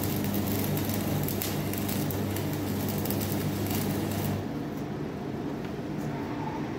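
Stick welding with E6013 electrodes on steel: the arc's crackle and sizzle over a steady low hum, cutting off about four and a half seconds in when the arc is broken.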